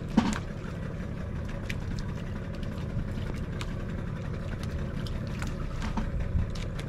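Fishing boat's engine idling, a steady low rumble, with faint light ticks scattered through it.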